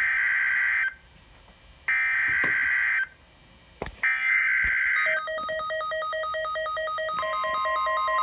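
Emergency Alert System SAME header sent three times: three electronic data screeches, each about a second long, with a second's gap between them. About five seconds in, a fast-pulsing electronic beep starts, and two seconds later a steady NOAA Weather Radio 1050 Hz warning alarm tone joins it, signalling an alert.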